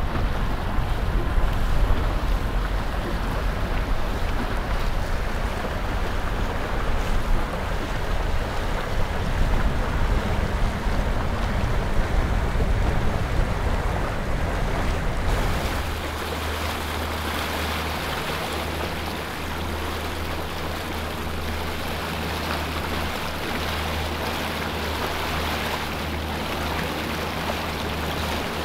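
Boat motor running with water and wind noise. About fifteen seconds in, the sound changes abruptly to a steadier low hum under a hiss of water.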